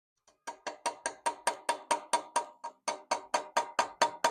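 Hammer tapping a chisel to cut shallow inlay grooves into a soft wrought-iron cross-guard. About twenty quick, even strikes come at roughly five a second, each with a short metallic ring, broken by one brief pause midway.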